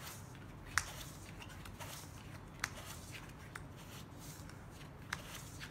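Playing cards drawn one at a time from a clear plastic card shoe and dealt onto a felt table: about five short, soft clicks and snaps spread over several seconds.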